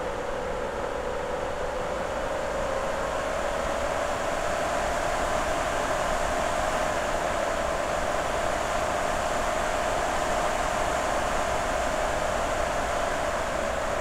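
A steady ambient drone: a sustained tone that slowly rises a little in pitch over an even hiss.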